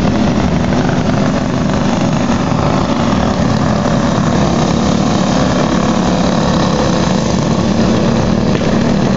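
Several go-kart engines running steadily as the karts lap the track, a continuous buzzing drone with no clear revs or pauses.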